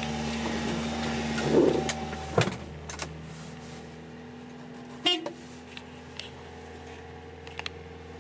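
A 1992 Subaru Sambar kei truck's four-cylinder engine idling, a steady hum heard from inside the cab that drops in level about two and a half seconds in. Two sharp clunks, about two and a half seconds apart, come as the manual gear lever is moved through the gears.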